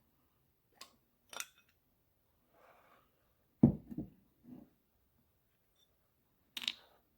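Carburetor parts and hand tools handled on a workbench while the carburetor is taken apart: scattered light metal clicks and taps, with one louder knock and a short ring about three and a half seconds in.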